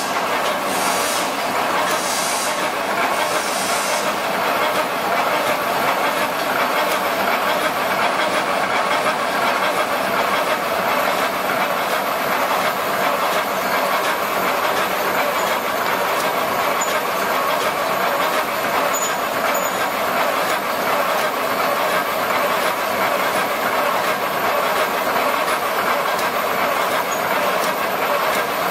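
Fully automatic welded wire mesh machine running steadily, a dense, fast mechanical clatter as it welds cross wires to the line wires and winds the finished mesh onto a roll.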